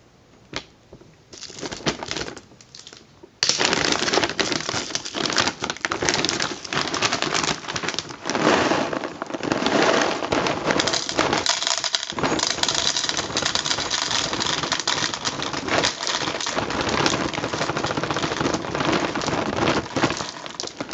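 Dry cat food (kibble) rattled in its container to call the cat to its food. A few quiet rustles and clicks come first, then a loud, steady rattle starts about three seconds in and keeps going.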